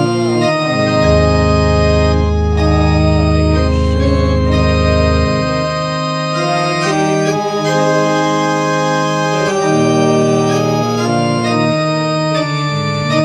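Organ music: slow, sustained chords changing every second or two, with a deep bass note held through the first few seconds.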